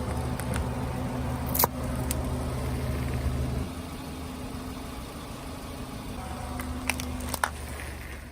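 Car engine running steadily, dropping to a quieter run after about three and a half seconds, with a few sharp clicks or cracks: one about a second and a half in and two near the end.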